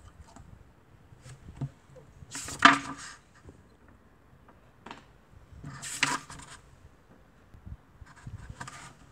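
Two pages of a picture book being turned, a short papery rustle about two and a half seconds in and another about six seconds in, with a few faint taps of handling between.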